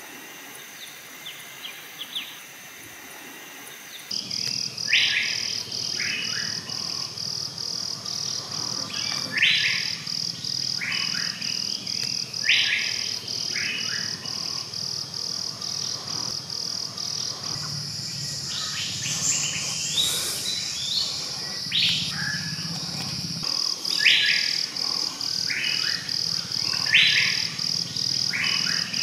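Forest ambience: a bird repeats a short, loud call every two to four seconds over a steady, rapidly pulsing high-pitched insect trill that starts abruptly about four seconds in.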